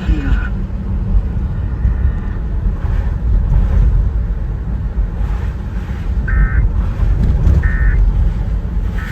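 Steady low rumble, then from about six seconds in three short two-tone electronic data bursts about a second and a half apart. These are the Emergency Alert System's end-of-message tones, marking the close of the tornado warning broadcast.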